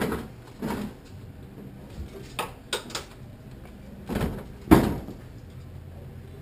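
Empty IBC tote, a plastic tank in a steel cage, being tipped onto its side on concrete: a few scattered knocks and scrapes, then one sharp hit about two-thirds of the way through as the cage comes down.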